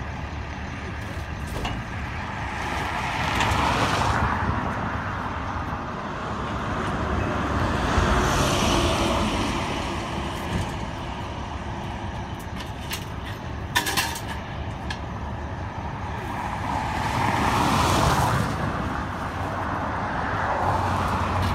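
Vehicles passing on a highway alongside, three of them swelling in and fading away one after another. A short sharp knock comes about two-thirds of the way through.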